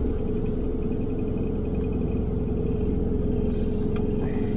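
Steady low rumble and hum of running machinery inside a tool truck, with one constant mid-pitched tone held throughout.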